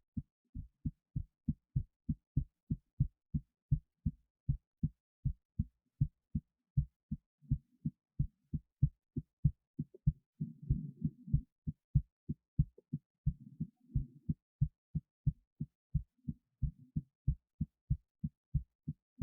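Human heartbeat recorded at the chest, a quick, regular run of low thuds, with the heart under a 25 lb weight pressed on the left side of the chest. A low rushing noise rises under the beats a couple of times midway.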